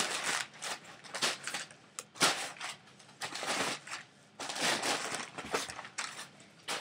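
Packing paper rustling and crinkling in irregular bursts as it is pulled out of a shipping box and crumpled.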